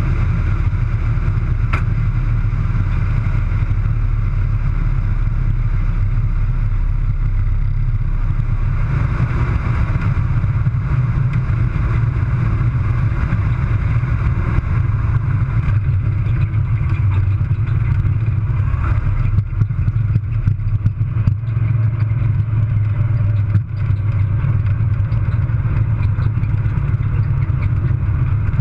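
Air Tractor AT-301's Pratt & Whitney R-1340 nine-cylinder radial engine running with a steady low drone, heard from inside the cockpit as the aircraft rolls along the runway.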